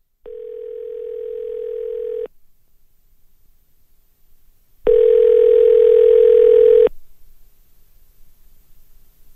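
Telephone ringback tone heard over a phone line: a steady mid-pitched tone sounding twice, about two seconds each with a pause between, the second louder, with a faint low hum under it.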